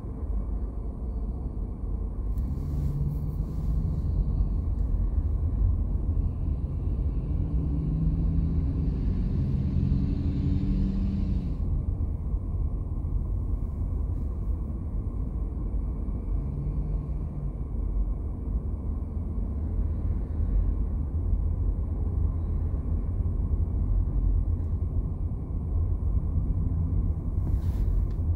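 Car driving on a highway: steady low road and tyre rumble, with a hiss that builds and cuts off suddenly about eleven seconds in.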